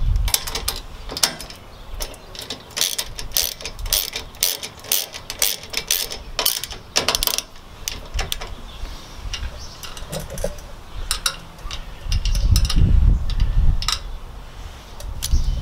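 10 mm socket ratchet clicking in quick runs as nuts are tightened onto bolts held still with an Allen key. The clicks come thickly for the first half and more sparsely after, with a low rumble near the end.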